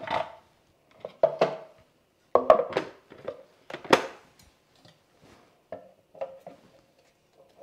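Hard plastic parts of a Magimix Juice Expert knocking and clunking as they are handled and fitted: the juicer bowl comes off the motor base, a food-processor bowl is set onto it and a cutting disc is lowered in. The knocks come irregularly, some seven of them, with short quiet gaps.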